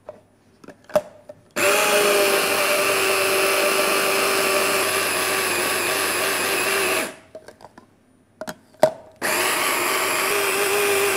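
Hand blender motor on a chopper-bowl attachment, blending curd cheese, olive oil and basil into a cream. It runs steadily for about five seconds, stops, the attachment clicks and knocks a few times, then it runs again near the end.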